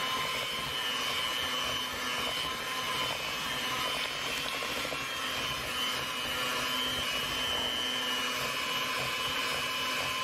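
Electric hand mixer running steadily at one speed, its beaters working through thick mashed sweet potato with butter and sugar, with a steady high motor whine.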